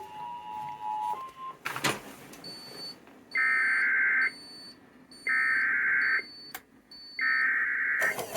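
Emergency Alert System SAME header: three bursts of rapid warbling digital data tones, each about a second long and about a second apart, announcing the start of the next severe thunderstorm warning.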